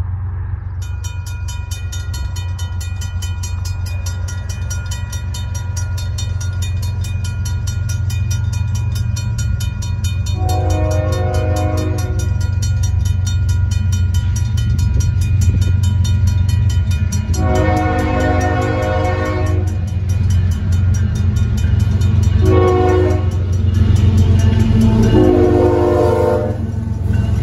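A RACO mechanical crossing bell starts ringing rapidly about a second in as the crossing activates. The horn of a Union Pacific GE C45ACCTE locomotive approaching the crossing sounds the grade-crossing signal: two long blasts, a short one, then a long one, over a steady low rumble that grows louder.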